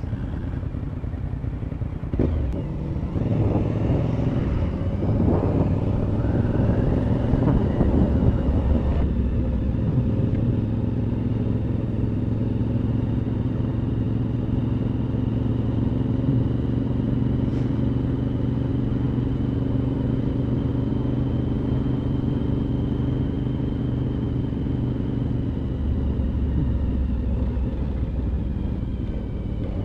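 Motorcycle engine pulling up through the revs over the first several seconds, with wind noise rising alongside it, then settling to a steady cruise.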